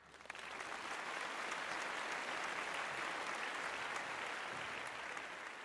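Crowd applause, many hands clapping, fading in over the first half second and then holding steady.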